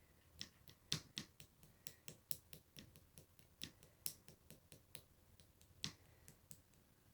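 Slime being squeezed and poked by hand, making a string of sharp little clicks and pops at an irregular few a second, which stop about a second before the end.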